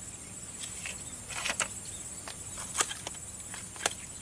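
Scattered sharp clicks and light taps, about a dozen, the loudest nearly three seconds in, from a telescopic tegek fishing pole and its line being handled. A faint steady high hiss lies underneath.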